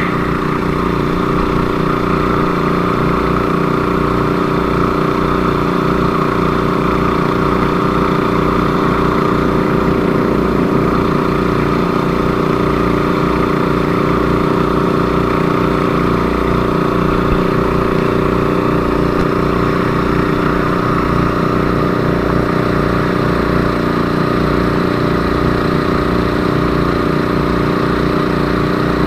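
An engine running steadily at a constant speed under test, with a fast, even low pulsing and no change in speed.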